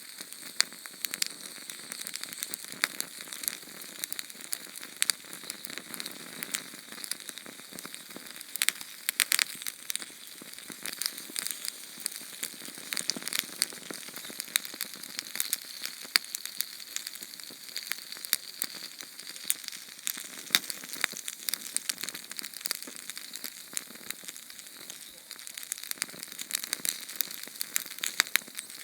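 Sterno canned-heat flame burning: a steady hiss with dense, irregular crackling pops.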